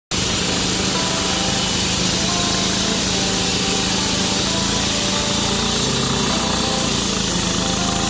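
Walk-behind concrete saw cutting a wet concrete slab: its engine runs steadily under load while the water-cooled diamond blade grinds through the concrete without a break.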